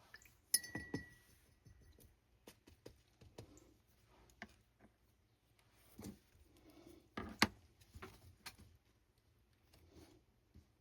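Art supplies being handled on a work table: a sharp glassy clink that rings briefly about half a second in, then scattered light taps and clicks of small hard objects being picked up and set down.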